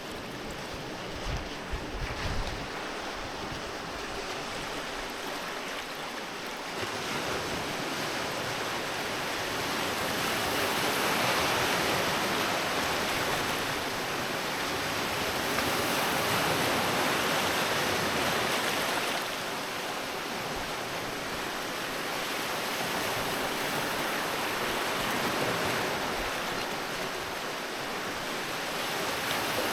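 Sea waves washing onto a beach, the surf swelling and easing back in long surges of several seconds. A few brief low thumps of wind on the microphone about two seconds in.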